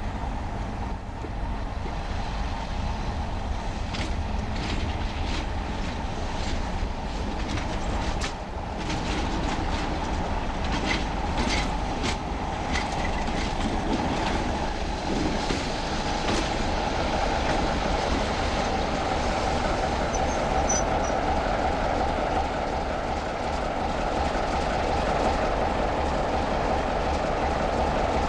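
Diesel locomotive engine running steadily, with a run of sharp wheel clicks over rail joints in the first half. In the second half a BR Class 33's Sulzer diesel engine grows gradually louder as the locomotive rolls slowly closer.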